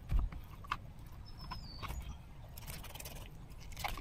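Knife and fish being handled on a plastic cutting board while filleting: scattered knocks, taps and scrapes, the loudest a thump just after the start.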